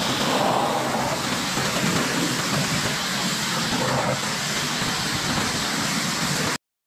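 Pressure washer spraying a fine jet of water onto boat carpet and vinyl seats: a steady, loud hiss that cuts off suddenly near the end.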